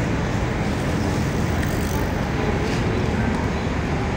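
Steady city street traffic noise, an even, unbroken background with no distinct events.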